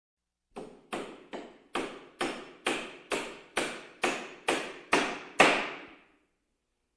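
Hammer blows struck in steady succession, about twelve of them at roughly two and a half a second, each with a short ringing decay. The last blow is the loudest.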